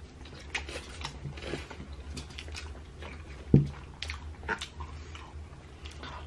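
Pizza being bitten and chewed: small clicks and crackles of eating over a low steady hum, with one sharp, loud thump about three and a half seconds in.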